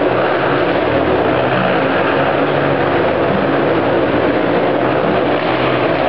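Motorcycle engines running inside a steel-mesh globe of death as the riders circle, a loud, steady drone with no let-up.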